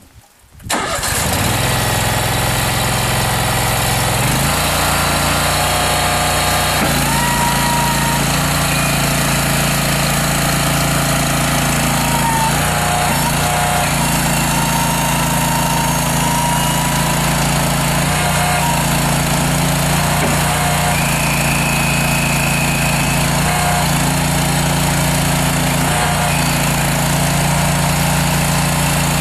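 Honda GX620 20 hp V-twin gas engine on a Terrimite T5C backhoe loader coming to life about a second in and then running steadily. Its pitch steps up and settles a couple of times in the first several seconds, and short higher whines come and go over the running engine.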